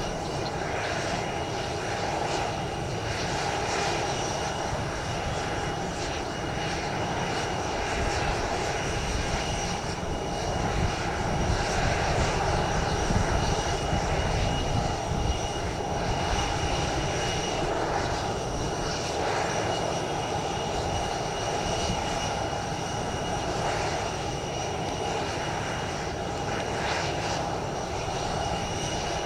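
Jet airliner engines running, a steady rushing sound with steady high whining tones on top, growing slightly louder about halfway through.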